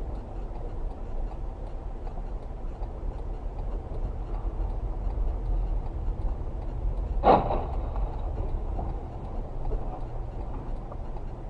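Steady low rumble of a car's engine and tyres on an icy road, heard from inside the cabin. One short, loud sound comes about seven seconds in, with a brief high tone after it.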